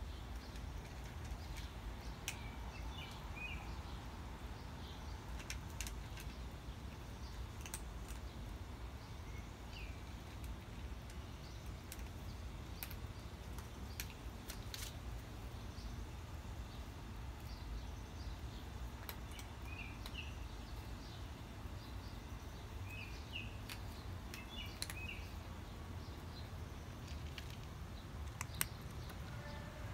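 Outdoor ambience: a steady low rumble with faint, short bird chirps every few seconds. Scattered sharp clicks are also heard, one louder near the end.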